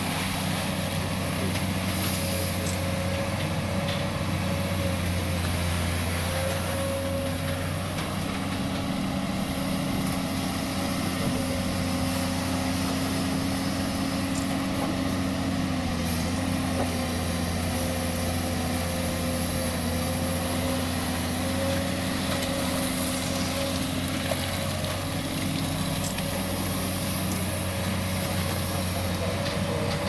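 Komatsu PC200-8 amphibious excavator's six-cylinder diesel engine running steadily as the long arm swings and digs, its pitch shifting slightly a few times.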